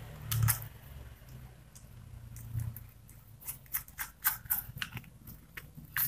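Small sharp clicks and scrapes of a screwdriver and wire against the plastic terminal block of a contactor as a terminal screw is worked and a jumper wire fitted. There are a couple of clicks just after the start, then a quick irregular run of them in the second half.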